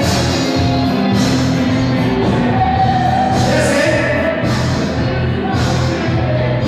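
Music with singing and a steady beat.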